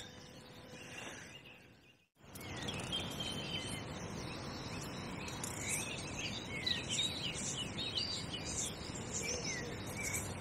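Small birds chirping and singing over a steady outdoor background hiss, after a brief dead-silent gap about two seconds in.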